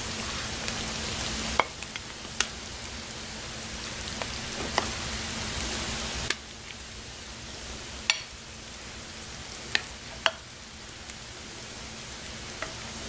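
Plastic serving spoon scooping thick hash out of a slow cooker crock and knocking against the crock and a plate, about half a dozen sharp clicks spread over the few seconds, over a steady hiss.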